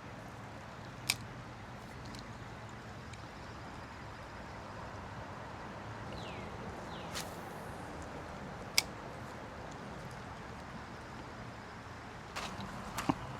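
Steady outdoor background of flowing river water and distant traffic on a nearby bridge, broken by a few sharp clicks, about a second in, near nine seconds, and near the end.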